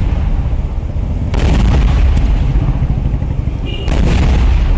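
Traditional Kerala temple fireworks going off. Two heavy blasts, about a second and a half in and again near the end, are joined by a few smaller cracks, and each blast is followed by a long, rolling rumble.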